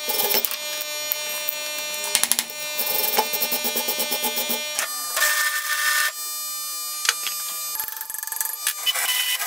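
Angle grinder running on a welded steel joint, first with a wire wheel brushing the weld and then a thin disc grinding it: a steady machine whine with rough scraping, changing in pitch and texture about five seconds in.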